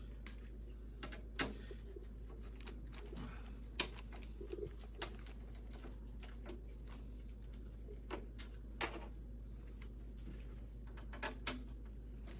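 Scattered light clicks and knocks of a computer case fan and case parts being handled and shifted into position, over a steady low hum.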